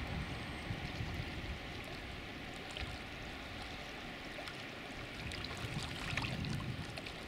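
Water lapping and trickling at a lake's rocky edge: a steady splashy hiss with small drips, and low wind rumble on the microphone that swells about six seconds in.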